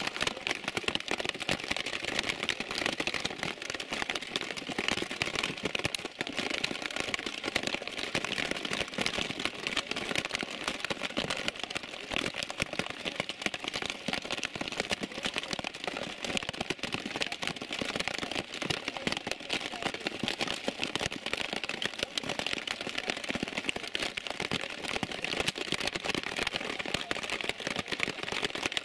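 Heavy rain falling: a dense, steady patter of drops hitting close by.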